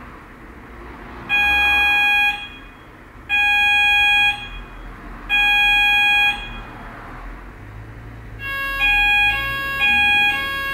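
Addressable fire alarm sounder on an Apollo XP95/Discovery loop, switched on from a loop tester. It sounds three electronic tones, each about a second long with a second's gap, then from about eight seconds in a steady tone with a shorter tone pulsing over it.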